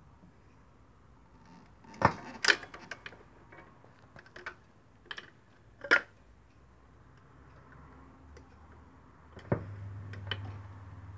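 Automatic record changer cycling: a run of mechanical clicks and clunks, with a loud clunk about six seconds in as the record drops onto the turntable platter. Near the end the pickup arm sets down on the record with a click, and a steady low hum follows.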